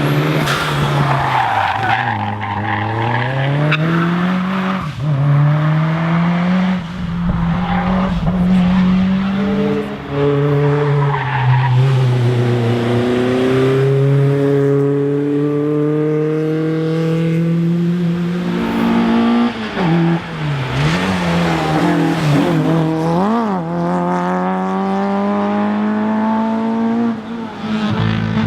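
Racing car engine revving hard, its pitch climbing and dropping again and again through gear changes and corners, with tyres squealing.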